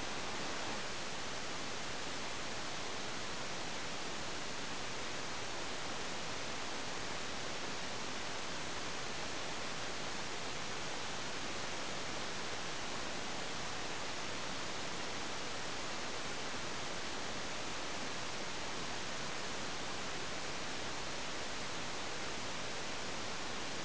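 Steady, even hiss with no other sound: the self-noise of a model rocket's onboard camera lying in the ground after the rocket crashed.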